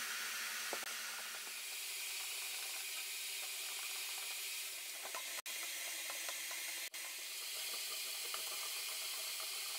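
Steady faint hiss with scattered faint ticks.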